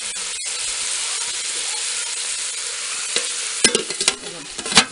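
Eggplant, tomato and dried-fish curry sizzling steadily in a metal pot. Near the end a metal lid knocks against the pot about three times as it is set on.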